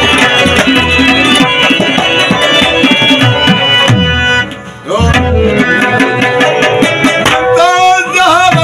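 Pashto folk music played on harmonium, rubab and tabla: held harmonium notes over a running tabla rhythm, dropping away briefly about halfway through. Near the end a man's voice begins to sing with the instruments.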